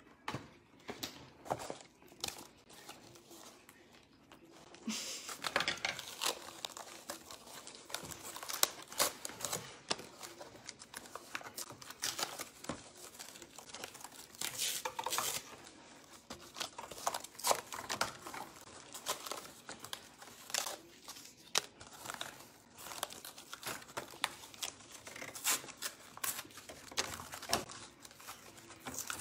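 Paper and cardboard rustling and scratching as triangles are traced with a pencil and cut out with scissors: irregular crinkling and snipping, sparse at first and busier from about five seconds in.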